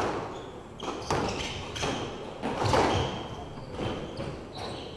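Squash rally: a series of sharp knocks from the ball striking rackets and the court walls, irregularly spaced about every half second to a second and echoing in the court, mixed with short high squeaks of shoes on the wooden floor.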